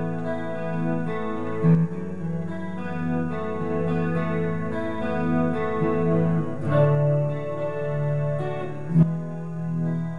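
Fender Player Telecaster electric guitar played rhythm-style through an amp with a chorus effect, chords strummed and left ringing. Two sharper strums stand out, one about two seconds in and one near the end.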